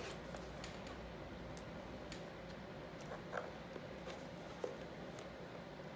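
Faint handling sounds of rubber carburettor boots being pressed and worked into the openings of a plastic motorcycle airbox: scattered light clicks and rubs, the clearest about three and a half seconds in and just before five seconds, over a steady faint hum.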